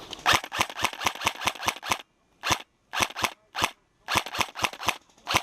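Airsoft gun firing in rapid bursts of sharp cracks, about seven shots a second, with short pauses between bursts.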